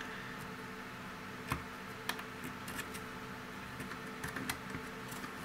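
Light, irregular clicks and taps of thin printed-circuit-board panels knocking against each other as they are slotted together into a small box, the sharpest about a second and a half in.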